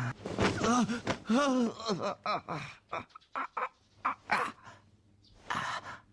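A voice making wordless sounds: drawn-out, wavering groans in the first three seconds, then short breathy gasps with pauses between them.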